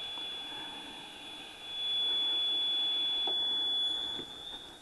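TIG welding torch after the arc is switched off: a steady hiss of argon post-flow with a thin high whine, growing louder for about two seconds in the middle and then fading.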